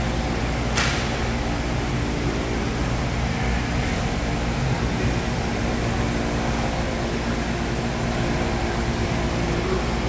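Steady drone and hum of an indoor inline hockey rink during play, with one sharp crack from the play a little under a second in.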